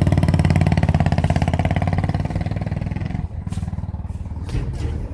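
Motor scooter engine idling, then switched off about three seconds in, followed by a few short clicks and knocks.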